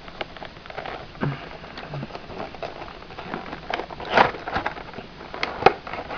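Toy packaging being opened by hand: crinkling and rustling with scattered clicks and taps, loudest near the end.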